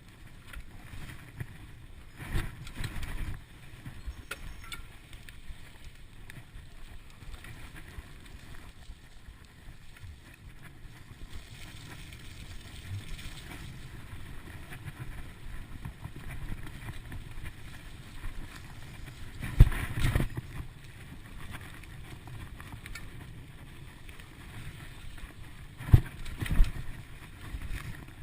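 Mountain bike rolling along a forest trail: steady tyre and wind rumble with the bike's frame and parts knocking and rattling over bumps, and two loud thumps in the second half as it hits rougher ground.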